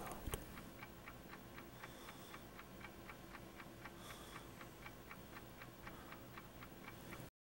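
Faint, even clock ticking, about four ticks a second, that cuts off suddenly near the end.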